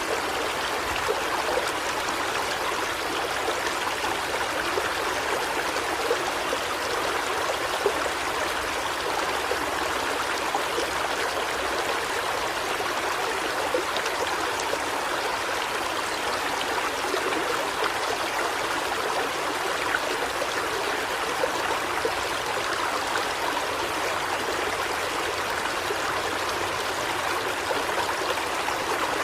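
River water flowing steadily, an even rushing and trickling.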